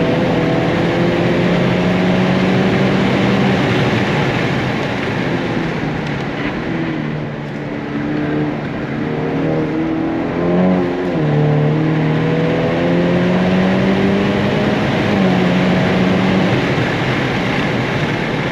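Modified Honda Accord 2.0T's turbocharged four-cylinder engine being driven hard, heard from inside the cabin. The engine note holds, then drops and rises again as the throttle comes off and back on, with a dip about seven seconds in and another change near the end. Steady tyre and road noise runs underneath.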